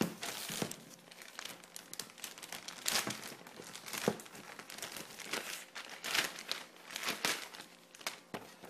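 Thin clear plastic bag crinkling and rustling as it is handled, pulled open and slid off a plastic blister pack, with uneven crackles throughout.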